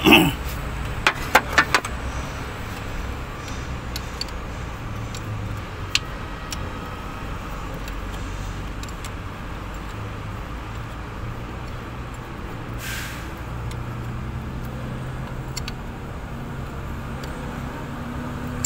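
A wrench clinking against metal engine parts several times in the first two seconds, over a steady low vehicle rumble that runs throughout. A short hiss comes about thirteen seconds in.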